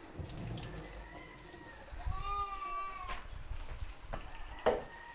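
A bleating animal call, faint about a second in and clearer from about two seconds in for about a second; a sharp knock follows near the end.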